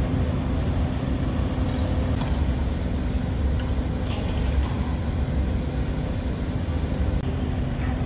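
Construction machinery running steadily: a continuous deep engine drone with a constant hum over it, without distinct strikes or changes.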